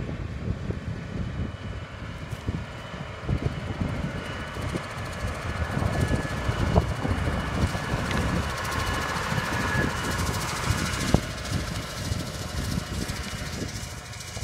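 New Holland T7 tractor running with a mounted fertilizer spreader, passing close by: the engine rumble and the noise of the spreader grow to their loudest about two-thirds of the way in, then fade as it moves off. Scattered short ticks come through the noise.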